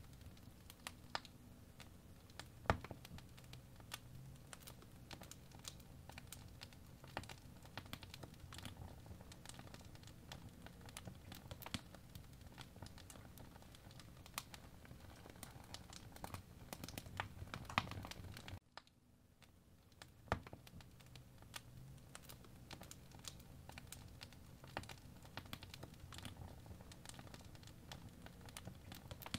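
Faint, irregular ticking and crackling over a low steady hum. It drops out briefly about two-thirds of the way through, then fades back in.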